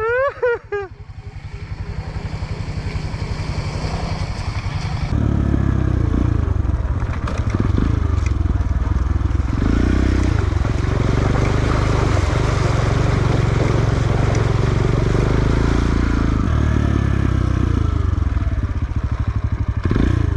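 Motorcycle engine running, louder and heavier from about five seconds in, easing off briefly near the end before picking up again.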